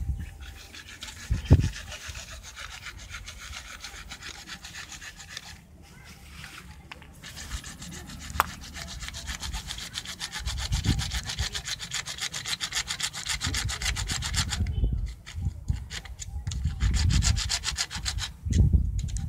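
Hacksaw cutting through a PVC water pipe: a steady run of rasping strokes, broken by a few short pauses, with low knocks as the pipe is handled.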